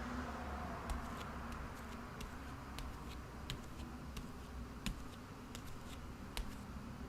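Steady low background hiss and hum with faint, irregular clicks scattered through it, roughly one or two a second.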